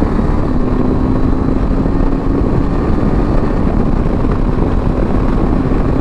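KTM 390 Adventure's single-cylinder engine accelerating hard, upshifting with the quickshifter and no clutch. The engine pitch climbs, drops sharply at each shift, right at the start and again about two and a half seconds in, then climbs again, over a heavy rush of wind noise.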